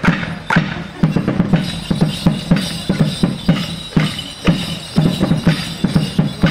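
Border Morris stick dance: wooden sticks clashing together over a drum beat, a steady pulse of about two strikes a second with lighter clicks in between.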